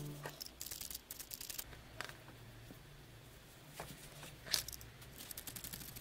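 Felting needle in a pen-style holder stabbing into wool felt in quick runs of fine, crisp pokes. The runs come in two spells, with a few single sharper clicks between them as the tool and the felt piece are handled.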